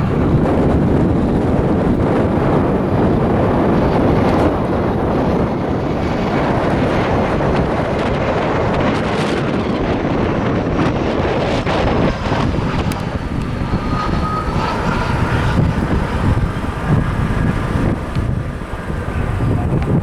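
Jet airliner engines rumbling, with wind buffeting the microphone. A faint high whine comes in over the second half.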